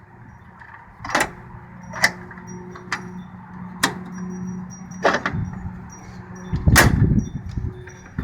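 Ford Ranger's plastic headlight assembly being wiggled and pulled loose from its slides and clips: about six sharp clicks and knocks a second or so apart, the loudest with a low thud near the end, over a faint steady hum.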